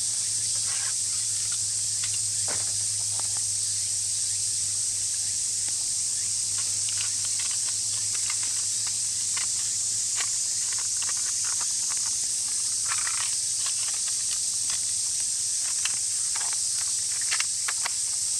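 Small wood fire crackling in a compact fire stand, with irregular pops and snaps, over a steady high hiss.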